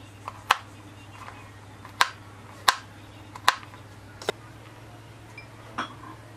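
Kitchen knife chopping walnut halves on a plastic cutting board: five sharp knocks of the blade at uneven intervals over the first four seconds or so, then one softer tap near the end, over a steady low hum.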